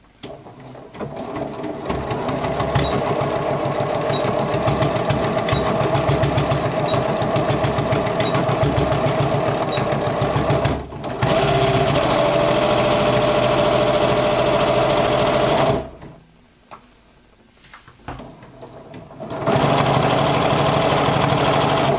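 Janome Memory Craft computerized sewing machine sewing a straight stitch through fabric, with a steady, rhythmic run of stitches. It stops briefly about halfway through, runs again, then pauses for a few seconds and starts up once more near the end.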